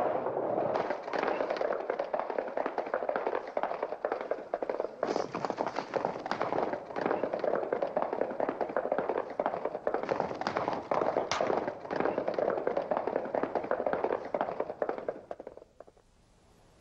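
Horses galloping: a fast, dense run of hoofbeats that fades away about fifteen seconds in.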